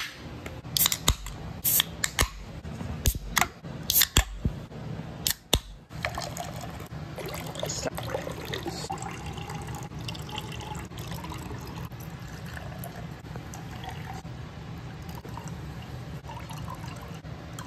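Aluminium energy-drink cans being opened and handled, a series of sharp clicks and knocks. Then, from about six seconds in, the drink is poured from the can into a glass in a steady fizzing stream.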